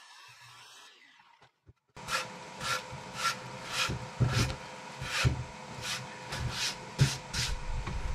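Hand rubbing and brushing across a freshly sawn wooden board, about a dozen quick swishes starting about two seconds in, with a few dull knocks of the board.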